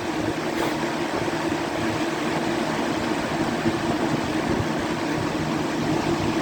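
Lakewood 202 box fan running on high from a cold start: a steady rush of air with a low motor hum underneath.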